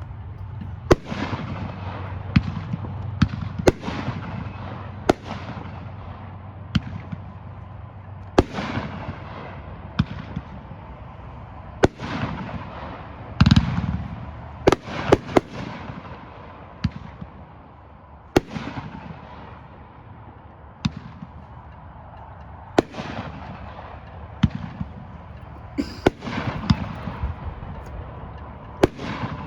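Consumer aerial firework cake (Lunar Blowout) firing shot after shot: sharp bursting reports at irregular intervals, a second or two apart, some louder than others, with a constant noisy haze between them.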